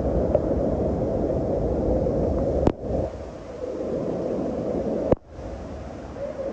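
Steady rushing roar of a waterfall (Bridal Veil Falls) pounding the rocks, with wind and spray buffeting the microphone. Two sharp clicks, each followed by a brief dip in the sound, come about a third and three quarters of the way through.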